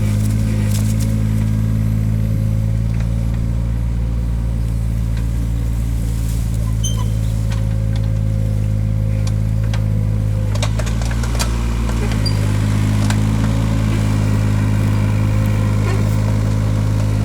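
Takeuchi TB016 mini excavator's diesel engine running steadily under hydraulic work, its note changing briefly about ten seconds in, with scattered light knocks and clicks.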